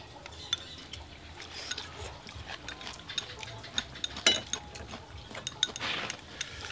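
Chopsticks and spoons clicking and clinking against ceramic bowls and plates during eating: a scattering of light clicks, with one sharper clink about four seconds in.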